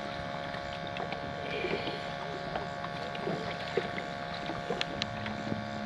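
Electric trolling motor running with a steady hum, with faint scattered clicks and taps in the boat.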